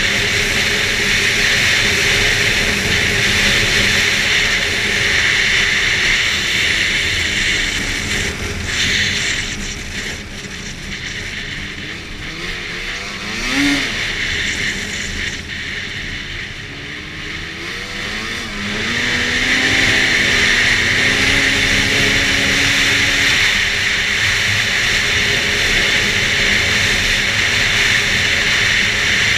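Arctic Cat F8 Sno Pro snowmobile's two-stroke twin running at speed on the trail. About ten seconds in the throttle eases and the sound drops. Near the twenty-second mark the engine revs back up, its pitch rising and then holding at a steady high run.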